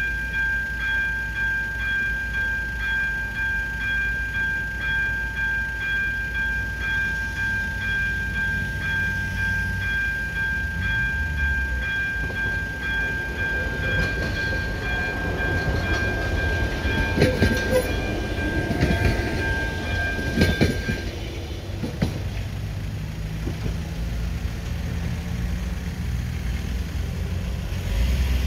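AŽD 71 level-crossing warning signal sounding its steady electronic ringing tone, which cuts off about three-quarters of the way through. A train passes over the crossing in the middle, with a rumble and wheel clicks.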